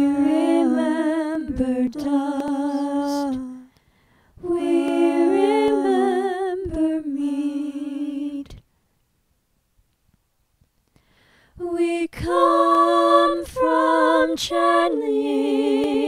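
Unaccompanied woman's voice singing slow, wordless held notes with a slight waver in pitch. It stops for about three seconds just past the middle, then starts again.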